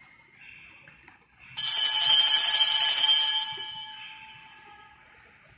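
A small altar bell is rung at the communion: a bright ringing with several high tones. It starts suddenly about one and a half seconds in and fades away over about two seconds.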